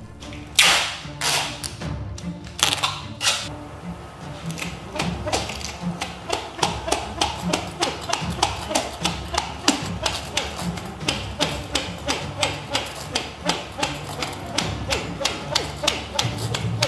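Bottle-cap string spinner whirring in regular pulses, about three a second, as the string is pulled and relaxed, after a few louder whooshes in the first seconds; background music plays under it.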